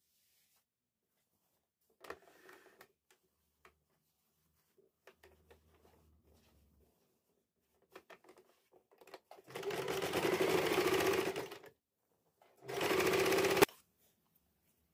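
A small electric machine running in two short bursts, the first about two seconds long and the second about one second, each starting and stopping abruptly. Faint handling clicks come before them.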